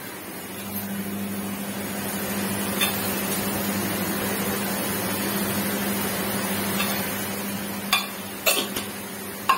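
A steady low hum with a hiss over it, starting about a second in and stopping about nine seconds in. Near the end come a few sharp metallic clinks from a small steel container being closed and set down.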